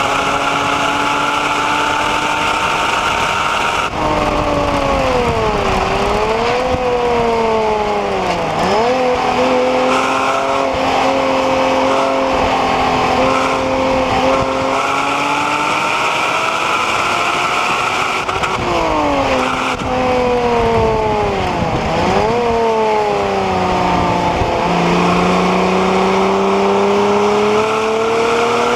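Porsche Cayman 987 2.9-litre flat-six under load on track, heard from on board, its pitch climbing under acceleration and holding steady through stretches. Twice it falls away sharply with quick jagged dips and recoveries, as the car brakes and downshifts, about five seconds in and again about twenty seconds in.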